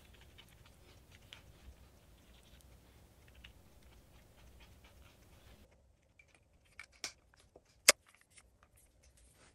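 Faint light tapping and scraping of a wooden glue stick on the plastic CrushGrind grinder mechanism. Then a few sharp clicks of the mechanism being pushed into the walnut pepper-mill body, the loudest one near the end.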